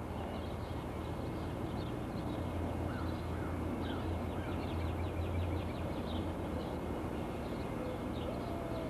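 Dawn birdsong: several birds calling in short, quick, high chirps, over a low steady hum. Near the end a clearer, lower held whistle begins.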